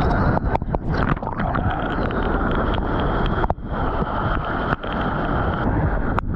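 Steady rush of wind buffeting a GoPro microphone together with moving water, as a surfboard pushes through whitewater and rides a wave. The rush is broken by a few short dips and splashy crackles.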